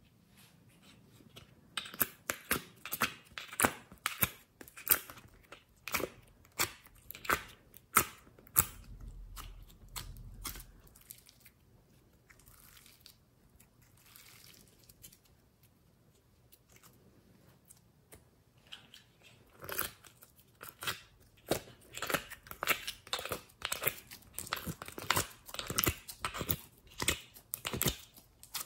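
Thick slime being squeezed and stretched by hand, giving dense runs of sharp sticky clicks and pops, with a quieter stretch in the middle.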